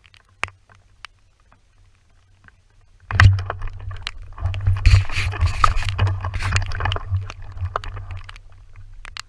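A hunter pushes quickly through tall grass and scrub: rustling of vegetation and clothing with a low rumble of body movement. It starts suddenly about three seconds in, after a quiet stretch with a couple of faint clicks, and eases off near the end.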